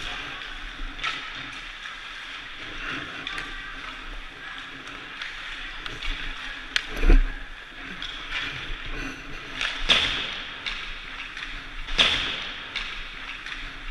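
Ice rink ambience: skates scraping the ice and echoing rink noise, broken by sharp knocks of pucks against sticks, boards and goalie gear. The loudest is a heavy hit about seven seconds in, with others near ten and twelve seconds.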